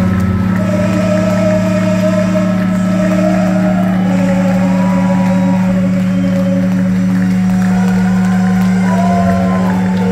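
Electric guitar feedback ringing from the amplifiers, a steady low drone with higher tones sliding and wavering above it.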